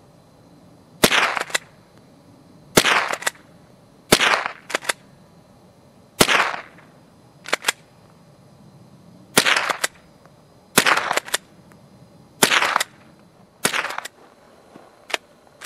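Remington Model 12 .22 pump-action rifle firing eight sharp shots at uneven intervals of one to three seconds, each shot followed by a few quieter clicks.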